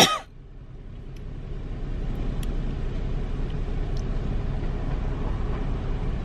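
Steady low rumble of an idling car, heard from inside the cabin, building a little over the first couple of seconds and then holding level, with a few faint ticks.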